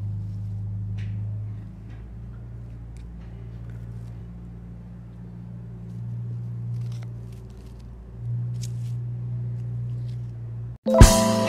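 A steady low rumble with a few faint clicks of small scissors cutting through a green plumeria seed pod. Near the end a loud strike opens acoustic guitar music.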